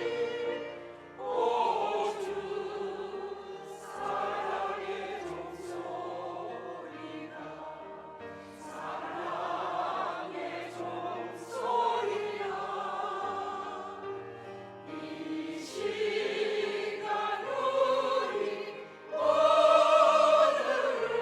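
Church choir singing a hymn in Korean over low sustained accompaniment notes, swelling to its loudest near the end.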